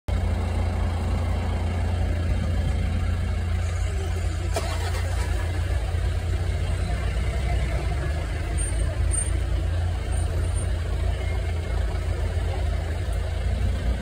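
A vehicle engine idling steadily, a low continuous rumble.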